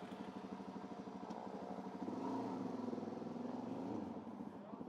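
The single-cylinder four-stroke engine of a 2008 Suzuki DR-Z400S dual-sport motorcycle idling with an even, rapid putter. It swells a little about two seconds in, then settles back.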